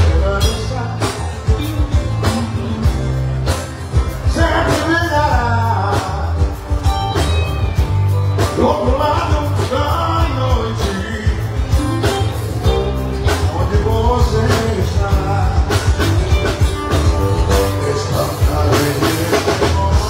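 Live band playing: a man singing over acoustic guitar, electric guitar, bass guitar and drum kit, with a steady drum beat and bass line throughout.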